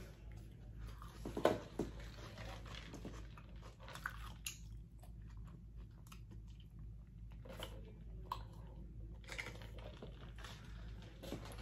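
Faint chewing and mouth sounds of a person eating a burrito, with soft sips through a straw, as scattered small clicks over a low steady hum.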